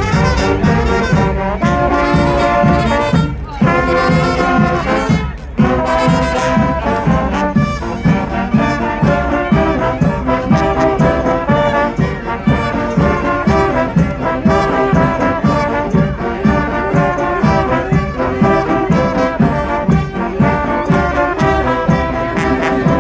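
Live brass band playing, with trombones and trumpets over a steady beat. The horns break off twice, briefly, a few seconds in.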